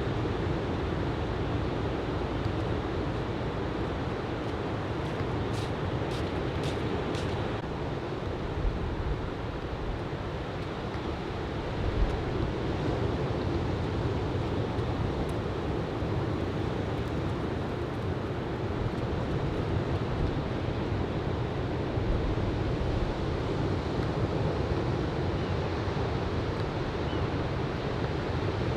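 Ocean surf from a typhoon swell washing in steadily, with wind rumbling on the microphone.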